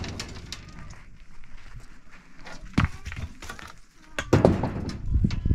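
Heavy rough stones being unloaded from a pickup truck's bed onto rocky ground: a sharp knock about three seconds in, then a heavier thud with scraping and rolling about a second later.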